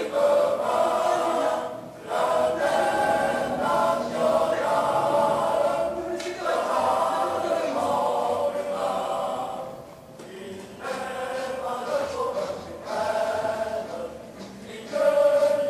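A choir singing: several voices holding sustained notes, in phrases a few seconds long with short breaks between them.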